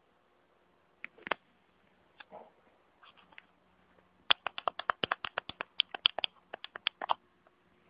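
A rabbit nibbling and chewing grass right at the microphone: a few scattered crunches, then about four seconds in a fast run of crisp crunching clicks, roughly six or seven a second.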